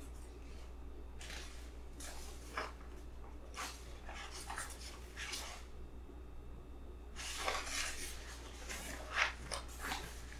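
Sheets of paper rustling in a string of short, irregular bursts as drawings are handled and turned over, over a steady low hum.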